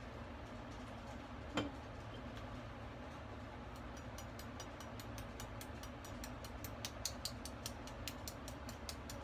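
Kitchen knife tapping an eggshell to pierce a small hole before boiling: one sharper tap, then from about four seconds in a quick run of light clicking taps, about four or five a second.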